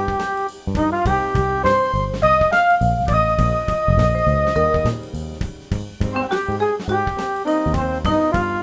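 Instrumental jazz music with a drum kit keeping a steady beat under a melody of pitched notes, one note held for about two seconds in the middle.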